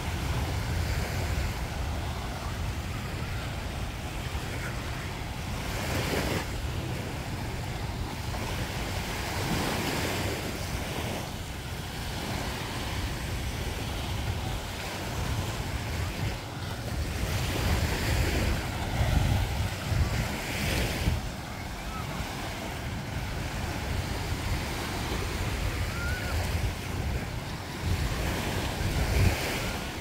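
Surf breaking and washing up on a sandy beach, the wash swelling and falling back several times, with wind rumbling on the microphone.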